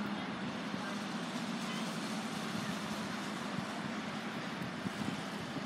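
Steady background hiss with a faint low hum, like a road vehicle's engine running at idle.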